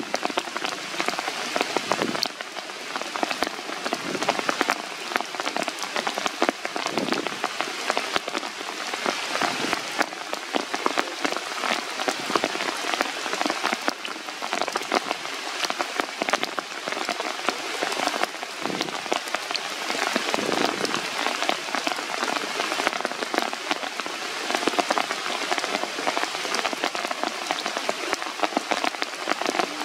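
Steady rain falling on forest leaves and branches, with many separate drops ticking close by.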